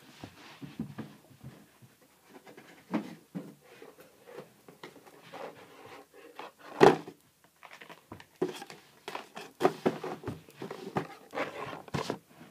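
Irregular knocks, thumps and rustles from things being handled and moved about, with one sharp knock about seven seconds in.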